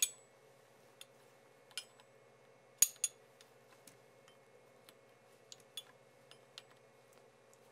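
Metal open-end wrench and locking pliers clinking as the wrench is fitted and refitted on a cable gland's compression nut to tighten it. About nine light, irregular clinks, the sharpest a little under three seconds in.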